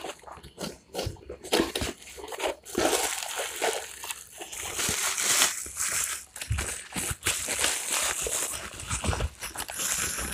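A few light clicks and scrapes of a cardboard box being opened, then, from about two and a half seconds in, a plastic bag crinkling continuously as a fishing reel is unwrapped from it.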